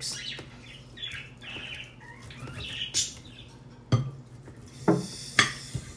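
A knife cutting through cooked barbecued pork ribs, with a few sharp clicks and knocks of the blade and utensils against the dish, most of them in the second half.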